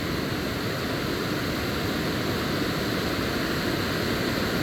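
Steady rushing of water pouring over a small dam spillway.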